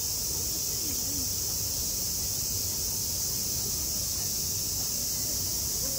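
Steady, unbroken chorus of summer cicadas with a high, even hiss, with faint distant voices underneath.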